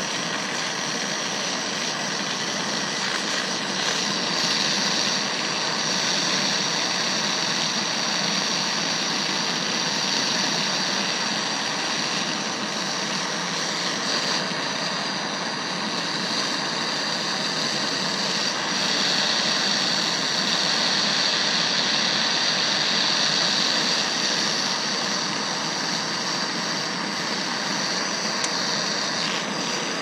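MAP gas torch burning steadily, a continuous hiss of flame held on a padlock to melt it, swelling slightly a few seconds in and again about two-thirds of the way through.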